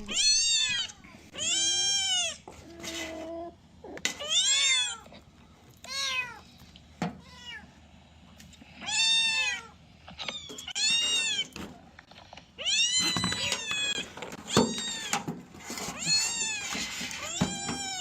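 A kitten trapped in a drainpipe meowing over and over in distress: about a dozen high-pitched cries, each rising and then falling in pitch.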